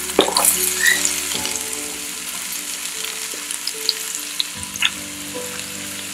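Chopped onion sizzling in hot olive oil in a stainless steel pan: a steady frying hiss with a few sharp crackles and pops, loudest just after the onion goes in and settling slightly after that.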